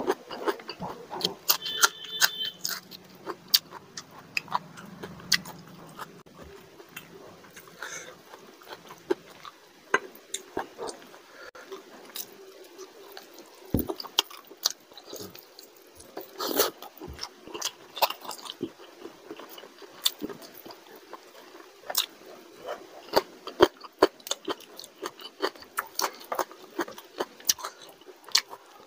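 Close-miked eating by hand: wet chewing and mouth clicks mixed with fingers squishing rice and curry gravy on a plate and pulling meat off a chicken leg, a dense run of irregular sharp clicks and smacks.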